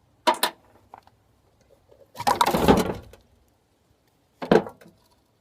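Metal parts of a jet pump knocking and clattering as a bolted-on part is pulled off by hand: two quick knocks, a longer rough scraping clatter in the middle, and a single knock near the end.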